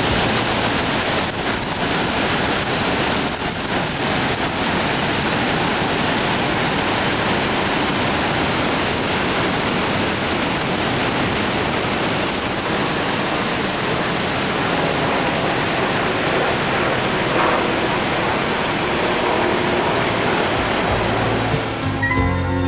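Steady roar of Niagara Falls: a dense, even rush of falling and crashing water, slightly duller in its hiss from about halfway through. Music with mallet percussion comes in near the end.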